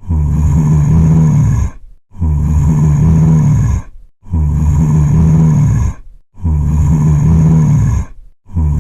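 Zombie groan sound effect: a low, growling moan about a second and a half long, repeated as an identical loop roughly every two seconds, four times over with a fifth starting near the end.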